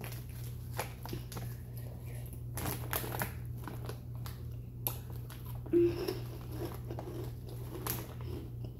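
Crunchy spicy chips being bitten and chewed close to the microphone, with crinkling and small crackles throughout; a short hum-like vocal sound about six seconds in.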